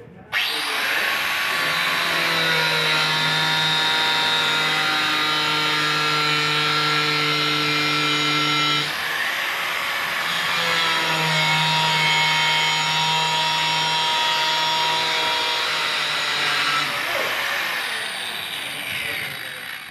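Corded handheld angle grinder with a cutting disc slicing through a 6-inch PVC pipe. The motor whine and the rasp of the disc in the plastic start abruptly and run steadily, shift briefly about nine seconds in, and wind down near the end.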